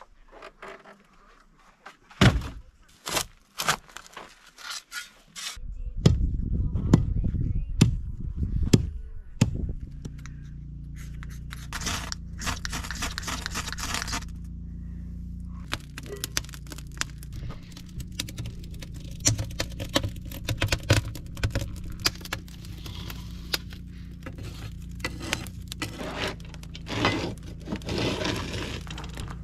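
Wooden boards knocking and clattering as they are handled. Then kindling and split wood are scraped and snapped into an outdoor oven's firebox, and a wood fire crackles with scattered pops over a steady low hum.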